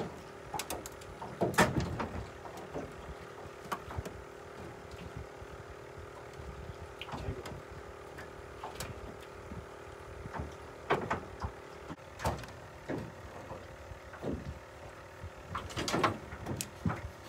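Scattered knocks and clunks of fishing gear being handled in a small boat, the loudest about one and a half seconds in and again near the end, over a faint steady hum.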